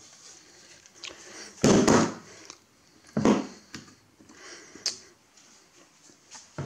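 Metal chassis of an opened bench voltmeter being handled and set down on a wooden workbench: a loud dull thump, a second thump a little over a second later, then a lighter sharp click.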